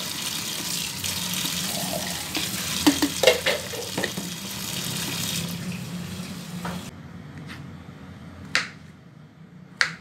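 Tap water running onto wood ear mushrooms in a plastic colander in a stainless steel sink, with a few knocks of handling partway through. The water stops about seven seconds in. Near the end come two sharp taps of a knife cutting mushrooms on a cutting board.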